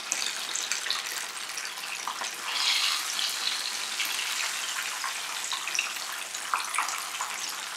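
Fish pieces deep-frying in hot oil: a steady sizzling hiss that swells briefly about three seconds in.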